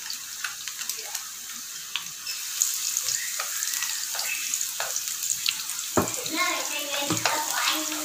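Food sizzling in hot cooking oil in a pan, a steady hiss with scattered sharp clicks.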